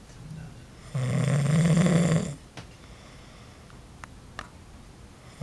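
A sleeping man snoring: one loud, low snore lasting just over a second, then quiet breathing with a few faint clicks, and the next snore starting at the very end.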